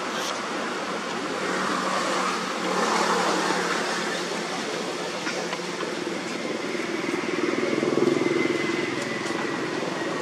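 Outdoor din of passing motor traffic, swelling about two seconds in and again, loudest, around eight seconds in as vehicles go by.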